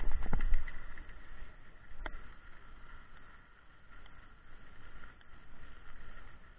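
Skis sliding over snow on a downhill run, with wind buffeting the microphone: a loud low rumble and a couple of knocks in the first second, then a steadier hiss with a sharp click about two seconds in.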